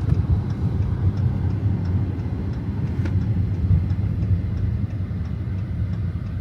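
Dodge Challenger Scat Pack's 392 HEMI V8 and road noise as the car cruises, a steady low rumble that eases slightly near the end. A single sharp click about three seconds in.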